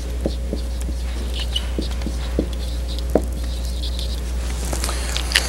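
Dry-erase marker squeaking and tapping on a whiteboard as words are written, in short irregular strokes over a steady low hum.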